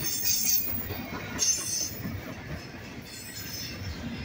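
Double-stack intermodal container train rolling past, its well cars' wheels rumbling and clacking on the rails. High-pitched wheel squeals rise over the rumble twice in the first two seconds, with a fainter one later.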